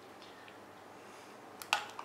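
Mostly quiet with faint light scraping, then a metal spoon clinks sharply against cookware twice in quick succession near the end, as goat cheese cream sauce is spooned out of a stainless steel saucepan.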